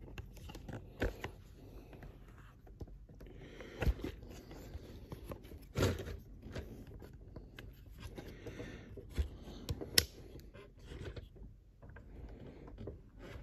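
Handling noise: cloth rustling against the microphone, with irregular light knocks and clicks, a few sharper ones scattered through.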